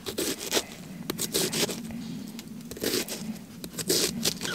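A knife slicing through a raw onion held in the hand, pressing down onto a tortilla. It makes a run of short, crisp, crunchy cuts at uneven intervals.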